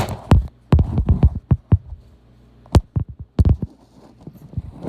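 Irregular thumps and knocks from objects being handled, coming in quick clusters in the first two seconds and again about three seconds in.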